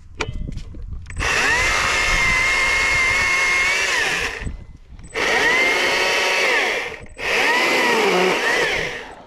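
Stihl MSA 120C battery-electric chainsaw running in three bursts while cutting up small fallen branches: the motor and chain whine rises as the trigger is pulled, holds steady and winds down each time. The pitch sags briefly in the last burst as the chain bites into wood.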